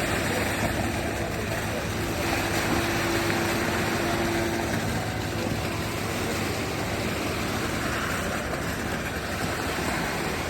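An engine running steadily, with a constant even noise and a low hum.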